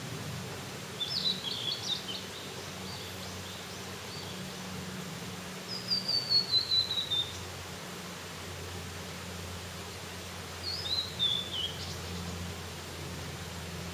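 A songbird singing three short phrases about five seconds apart, the middle one a falling run of notes, over a steady low hum.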